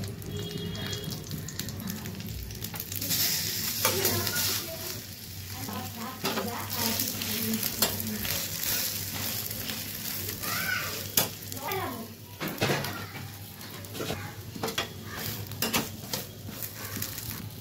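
Egg-dipped bread slices frying in oil in a pan, sizzling steadily, with sharp clicks and scrapes of a spatula against the pan as the slices are pressed and turned.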